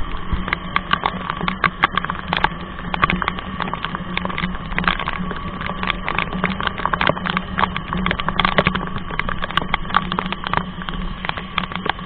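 Raindrops striking the camera in rapid, irregular taps while a motorcycle rides slowly through rain, its engine a steady low hum underneath.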